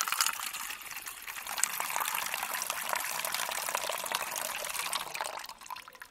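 Water being poured into a container, filling it with a steady splashing gush that tails off about five and a half seconds in.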